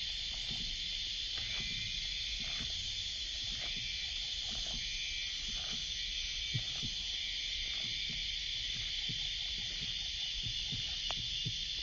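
Steady high-pitched drone of summer cicadas, with a second, pulsing insect call coming and going and a few faint low knocks.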